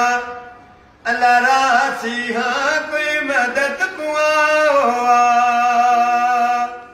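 A man singing a noha, a Shia lament for Husain, solo and unaccompanied. He pauses briefly just after the start, resumes about a second in with a bending, ornamented line, and closes on a long held note.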